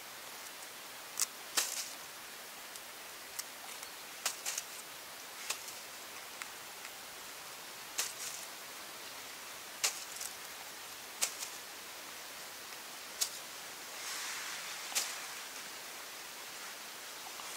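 A knife cutting and trimming freshly picked wild mushrooms in the hand: short, sharp clicks every second or two over a steady hiss, with a brief rustle a little before the end.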